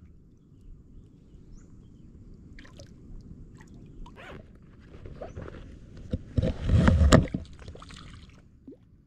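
A hooked fish thrashing and splashing in shallow water at the bank as it is brought in on light line. There are a few small splashes at first, then one loud burst of splashing about six to seven seconds in.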